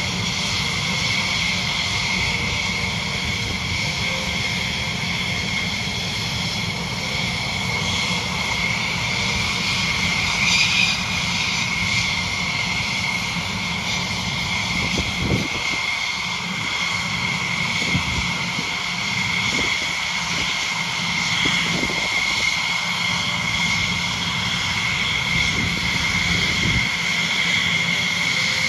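Thunderbirds F-16 Fighting Falcon jet engines running steadily, a continuous rush of noise carrying a high whine. A few short low thumps come through in the middle.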